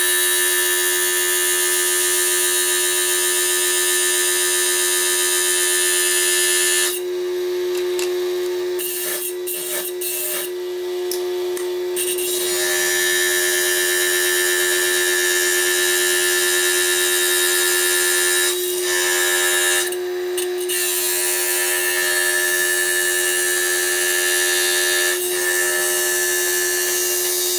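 Small lapidary diamond trim saw running with a steady motor whine while its blade cuts a block of very hard rhyolite, a high grinding hiss over the whine. The hiss drops away twice for a few seconds and then returns. The sound is sped up threefold.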